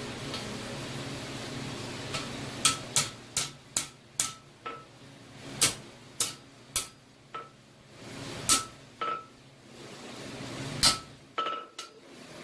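Hand hammer blows on steel over an anvil while forging a blacksmith's post-vise spring: about sixteen sharp strikes in uneven groups, each with a short clear ring. A steady low rushing noise sits underneath at the start and again near the end.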